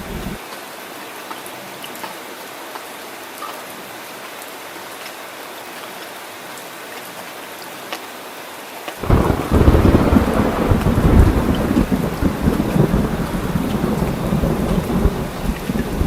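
Steady rain hissing, with no deep rumble beneath it. About nine seconds in, a loud clap of thunder breaks in suddenly and keeps rumbling under the rain.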